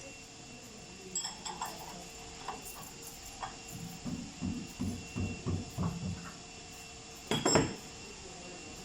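Steel parts of a brake-rotor resurfacing lathe clinking and clanking as the rotor is set up on it. There are scattered clinks, then a quick run of about eight light knocks, then one loud clank near the end, over a faint steady hum.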